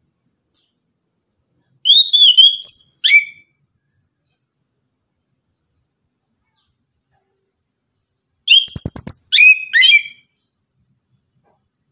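Chestnut-capped thrush (anis kembang) singing: two short, loud phrases of clear whistled notes that glide up and down, the second about six seconds after the first.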